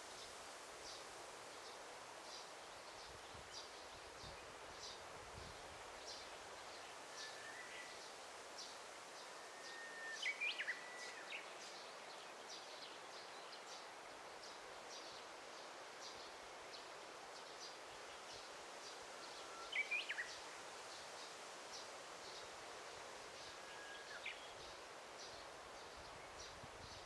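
Forest ambience: a steady soft hiss with a continuous series of short, high chirps at roughly two a second. Louder bird calls with quick sweeping notes break in a few times, most strongly about ten and twenty seconds in.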